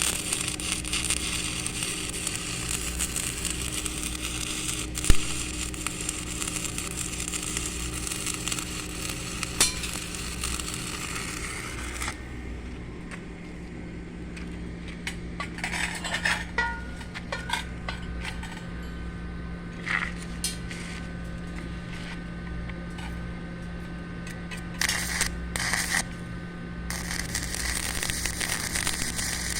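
Electric arc welding on steel: the arc's steady crackling hiss runs for about the first twelve seconds, then stops. A few short metal clinks and taps follow over a steady low hum, and the crackle starts again near the end.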